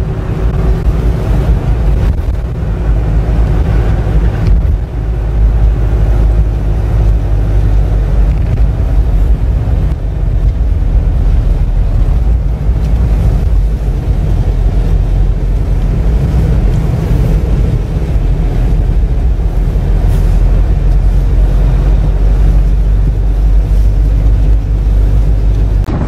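Steady low rumble of a vehicle driving along a road, engine and road noise mixed with wind noise.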